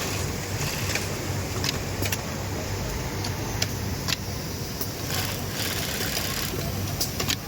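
Industrial sewing machine running steadily, a low motor hum with scattered sharp clicks, and a brief hissing stretch about five seconds in.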